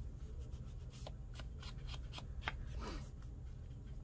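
Wooden-handled foam ink blending tool tapped and swiped along the edges of folded scrapbook paper, inking them with distress ink: a series of light taps and scuffs with some paper rustling.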